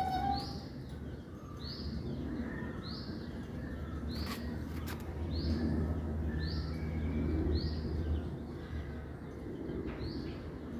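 A bird giving a short high chirp over and over, about once a second, over a low steady background rumble.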